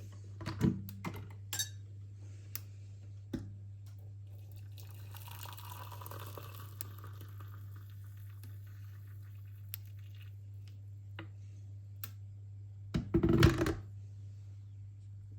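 Household handling sounds: a few light clicks and knocks, a stretch of liquid pouring or running for a few seconds, then a louder clatter of dishes near the end, over a steady low hum.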